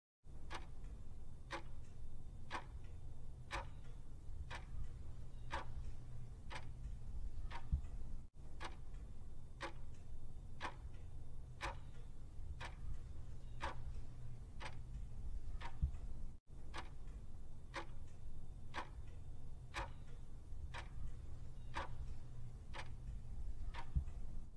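Quiz countdown timer's clock-style tick-tock sound effect, ticking steadily about twice a second over a faint low hum.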